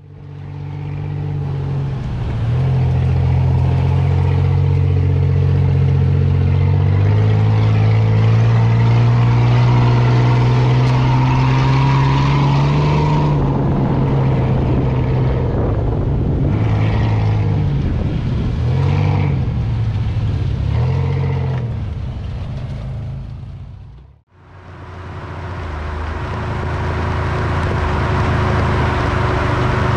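Off-road 4x4 engine running as the vehicle drives a rough dirt track, its revs stepping up and swelling up and down, with tyre and wind noise. The sound fades out for a moment about three quarters of the way through and comes back.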